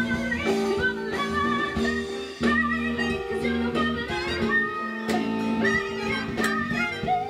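A live band with a string section playing, violins prominent among held chords and changing notes.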